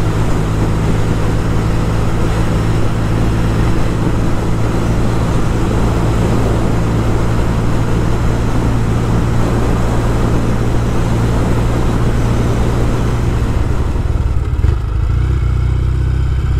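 Norton Commando parallel-twin engine running at a steady cruising speed, with wind rushing over the microphone. A little before the end, the wind noise eases and the engine note drops lower.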